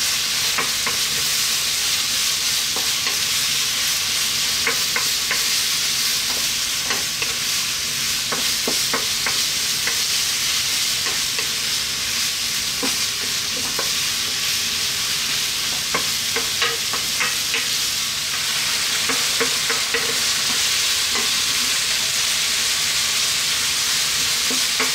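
Pork strips and sliced red onion sizzling in oil in a hot wok, stirred with a wooden spatula that scrapes and clicks against the pan now and then.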